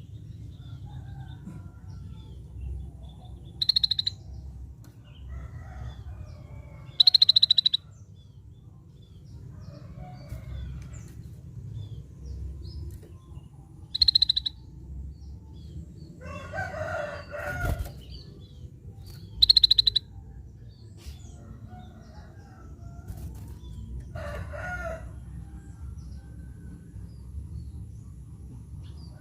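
Scaly-breasted bulbul calling: four loud, short, high-pitched notes made of rapid pulses, several seconds apart. Softer, lower bird calls come between them.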